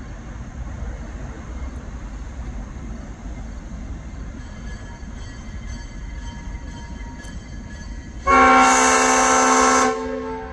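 Diesel locomotive horn sounding one loud blast of about a second and a half near the end, a warning as the locomotive reaches a road grade crossing. Before it, a steady low rumble.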